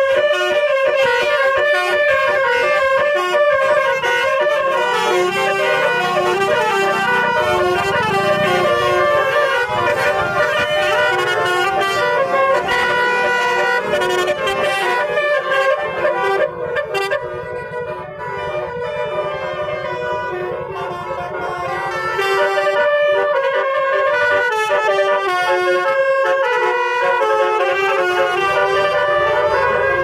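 Basuri musical air horns (telolet horns) playing a tune in quick-changing notes, loud and continuous, dipping in loudness for a few seconds a little past the middle.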